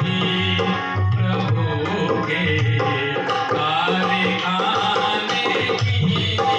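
Bhajan music without singing: tabla keeping a rhythm under a melody instrument.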